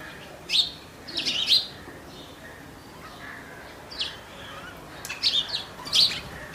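A bird chirping: several short, high calls in small groups, over a faint steady hiss.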